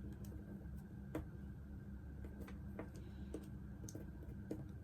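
Faint scattered clicks of multimeter test probes and a plug fuse being handled, about six light ticks over a low steady hum.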